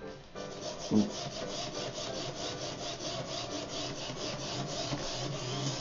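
Geared DC motors of a two-wheeled self-balancing robot whirring back and forth in a steady sawing rhythm, reversing about five times a second as the robot oscillates: the proportional (P) gain is set too high. A short, louder sound comes about a second in.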